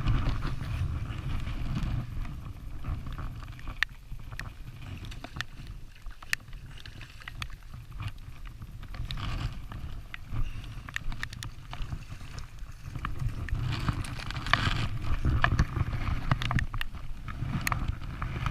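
Wind buffeting the microphone in a low, uneven rumble, with scattered small clicks and a burst of hiss about fourteen seconds in.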